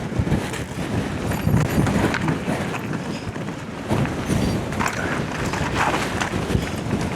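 Strong wind buffeting the action camera's microphone in a steady low rushing rumble, with irregular knocks and rattles underneath.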